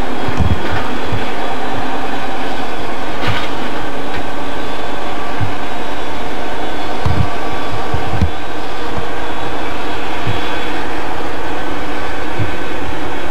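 Passenger cars of a C&NW business train rolling past at night: a steady rolling rumble from wheels on the rails, with low thumps every second or so.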